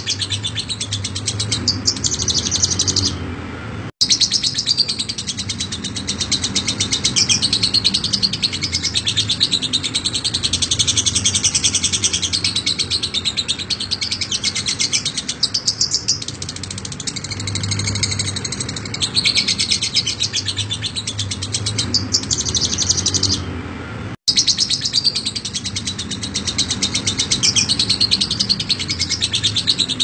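Fischer's lovebird chattering in a long, fast, almost unbroken stream of high, scratchy chirps: the 'ngekek' song. The chatter thins briefly about three seconds in and again near 23 seconds, each time followed by an instant's sudden dropout before it resumes.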